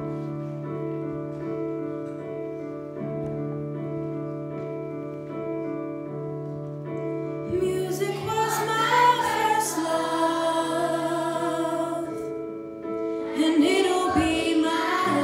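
A school big band and choir performing. The music starts suddenly on a held chord, and fuller, louder singing comes in about seven and a half seconds in.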